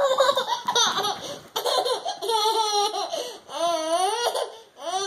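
A toddler laughing loudly in a string of high-pitched bursts, the pitch sliding up and down within each one.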